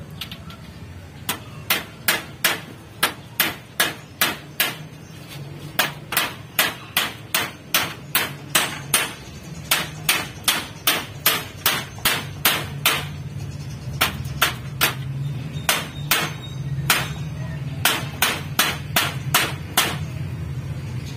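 A claw hammer striking repeatedly: dozens of quick, sharp blows at about two to three a second, in runs with short pauses.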